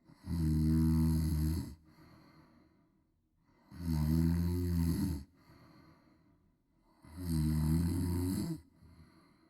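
A woman snoring loudly: three snores, each about a second and a half long, coming roughly every three and a half seconds, with quieter breathing between them.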